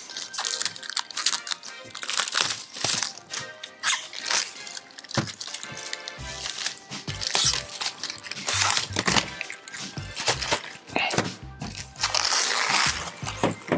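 Protective plastic wrap and tape crinkling and tearing as they are peeled off by hand, in quick irregular crackles, over background music.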